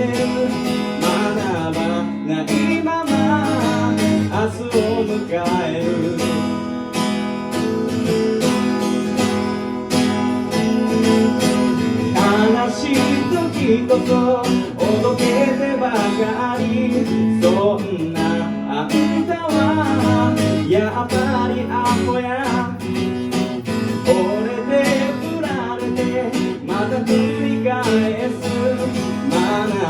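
Music led by strummed acoustic guitar over steady low bass notes, with a wavering melody line above.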